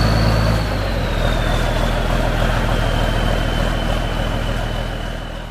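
John Deere 4440's six-cylinder diesel engine running smoothly, purring like a kitten, on its first run after a restoration and engine rebuild. The note eases slightly about a second in, and a high whine slowly falls in pitch.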